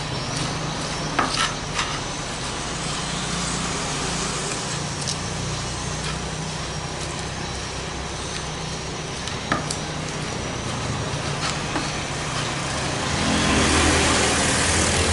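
Stone pestle crushing green chilies and shallots in a clay mortar, with a few sharp knocks of stone on clay. Under it runs a steady low mechanical hum that grows louder near the end.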